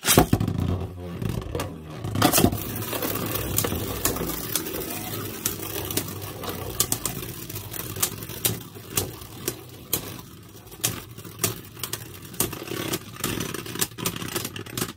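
Two Beyblade Burst spinning tops launched into a plastic stadium, then whirring across its floor with repeated sharp clacks as they collide, the whir slowly fading.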